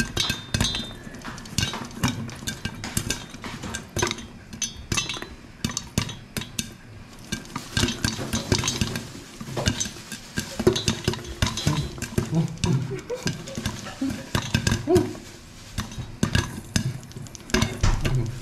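Popcorn popping inside a covered stainless-steel pot with a glass lid: a dense, irregular run of sharp pops, with the popped corn knocking against the pot and lid. The pot is shaken on the gas stove's grate, adding a metallic clatter.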